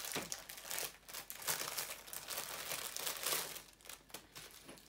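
Clear plastic bag crinkling as it is handled and opened by hand, irregular crackles that die down about three and a half seconds in.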